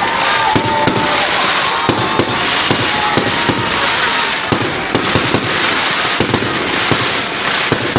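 Fireworks and firecrackers going off: a continuous crackling hiss with frequent sharp bangs at an irregular pace, several a second, and a faint whistle near the start.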